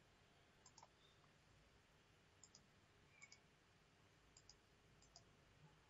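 Faint computer mouse clicks, several in quick pairs, over near silence.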